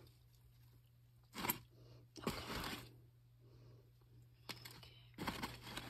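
Faint handling noises: a few short rustling and scraping sounds, the loudest about a second and a half in, as a feeder roach is picked out of its container.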